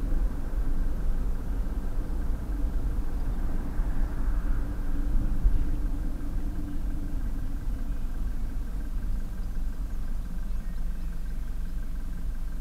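Steady low engine and tyre rumble heard inside the cabin of a vehicle driving on a motorway. A faint hum in the engine noise fades about halfway through, as the vehicle slows.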